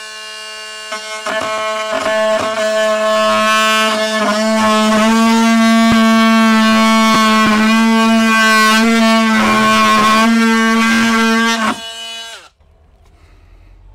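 Cordless drill running at a steady whine for about twelve seconds, with faint clicks through it. It spins up at the start and winds down near the end as it bores into the plywood wall.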